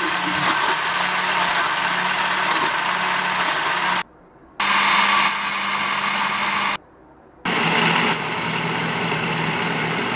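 Electric countertop blender running at a steady speed, its motor humming under a dense whirring, as it purées chillies, shallots, garlic and oil into a smooth spice paste. The sound cuts out abruptly twice for about half a second.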